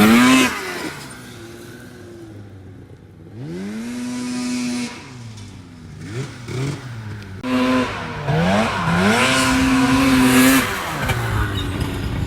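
Suzuki GSX600 inline-four sport-bike engine in an Odyssey buggy revving hard, its pitch climbing, holding high and then dropping off, several times over, with quieter lulls between the pulls.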